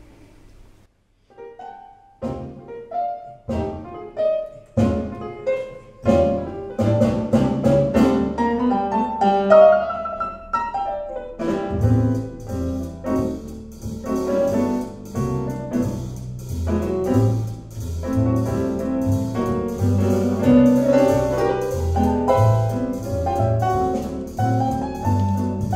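Jazz piano recording played from CD over a high-end hi-fi system in the room. Solo piano starts about a second in, and about 11 seconds in a bass line and cymbals join.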